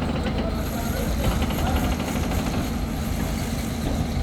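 An engine running steadily, with voices in the background. For about a second and a half in the middle there is a fast, even rattle of ticks.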